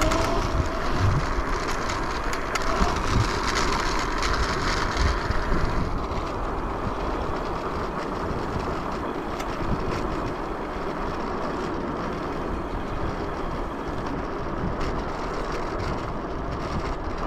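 Yugen RX11 electric scooter riding along: a steady rumble and rush of road and wind noise.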